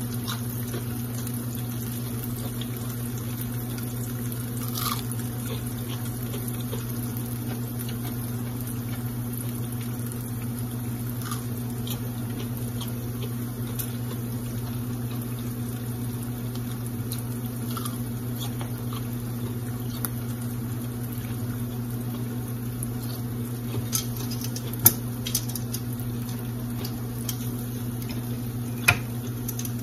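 Battered onion rings frying in hot oil in a cast iron skillet, a steady sizzle over a low hum. Near the end, metal tongs click against the skillet a few times as a ring is turned and lifted out.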